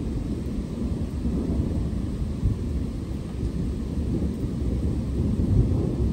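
Thunder rumbling low and continuously, swelling and ebbing without a sharp crack.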